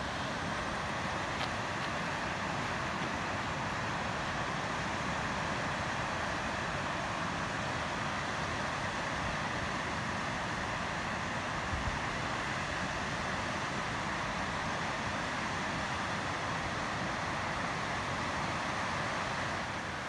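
Steady rushing of water spilling over a river's rock cascade and weir.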